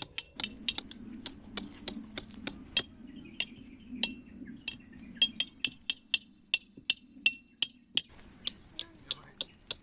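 Metal tent pegs being hammered into the ground: quick, steady strikes about three a second, each with a short metallic ring, pausing briefly about three seconds in.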